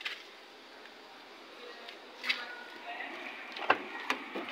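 A few sharp clicks and knocks in the second half, over faint background voices and yard noise.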